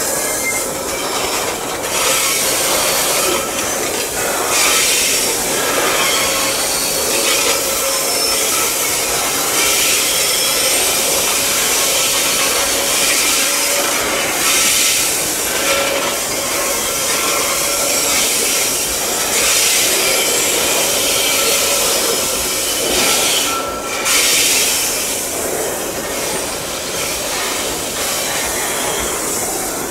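Loaded coal wagons of a long Babaranjang coal train rolling slowly past, their steel wheels grinding on the rails in a steady noise with faint squealing tones.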